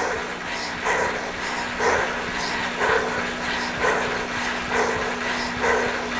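A dog barking about once a second over a steady low hum.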